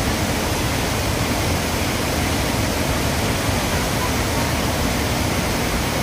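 Waterfall pouring over a cliff into a rocky pool: a steady, unbroken rush of falling water.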